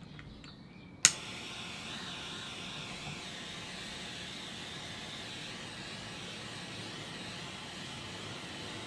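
Kitchen blowtorch clicking alight about a second in, then its flame hissing steadily as it browns the tops of piped meringue.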